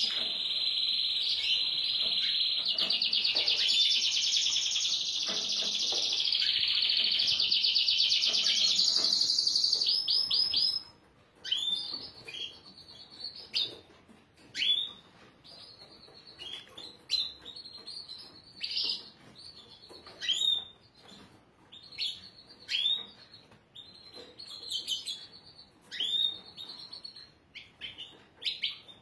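Domestic canary singing: a loud, continuous rolling trill for the first ten seconds or so, which breaks off suddenly into short, separate high chirps every second or two.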